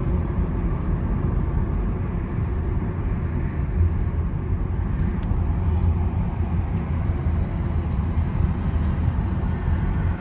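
Steady low rumble of tyre and wind noise inside the cabin of a first-generation Nissan Leaf electric car driving on the highway.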